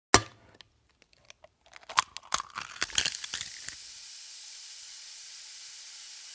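A sharp click, then crackling that settles into a steady high sizzling hiss: a recorded sound effect of an egg frying in a pan.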